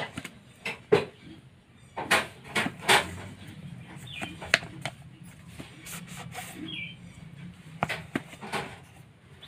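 Cardboard OPPO A53 phone box being turned and handled in gloved hands: irregular taps, knocks and rubs of the box, with a few short high chirps in the background.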